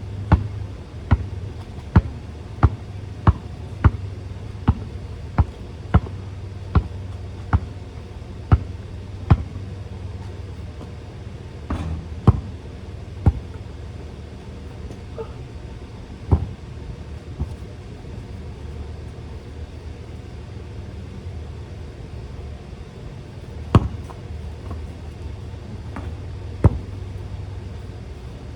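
A basketball being dribbled, bouncing sharply and evenly about three times every two seconds, then only a few scattered bounces. A steady low hum runs underneath.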